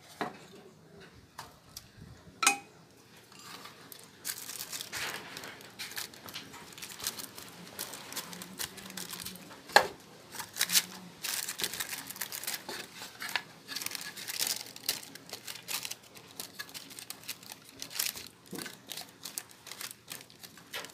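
Paper lining of a tray crinkling and rustling in many short crackles as a silicone spatula presses soft chocolate dough flat into it. There are a couple of sharp knocks, the loudest about ten seconds in.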